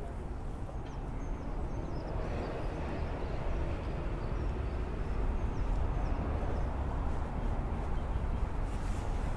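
City street ambience: road traffic running steadily as a low rumble that grows a little louder from about two seconds in, with faint high chirps scattered above it.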